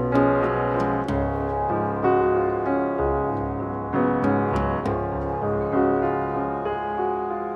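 Slow piano music, with a note or chord struck about once a second and left to ring.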